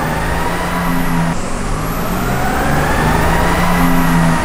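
Ram heavy-duty pickup's 6.7 L Cummins turbo-diesel under full load on a chassis dyno, with the turbo whistle climbing. About a second and a half in, the whistle drops sharply and builds again, then falls away near the end.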